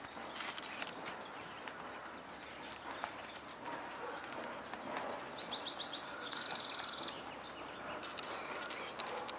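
A small songbird sings a short, high song of quick repeated notes ending in a trill, about five seconds in, over outdoor background noise. A few faint knocks early on are a horse's hooves on a dirt track.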